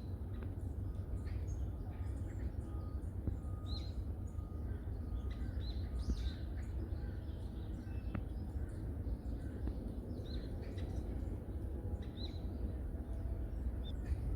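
Forest birds giving short, high chirps and call notes, scattered every second or few, over a steady low background rumble.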